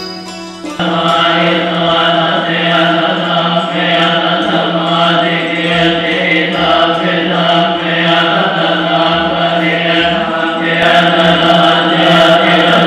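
Plucked string music stops about a second in, replaced by Thai Buddhist monks chanting Pali verses in unison into a microphone, a steady drone held on one low pitch with rhythmic syllables.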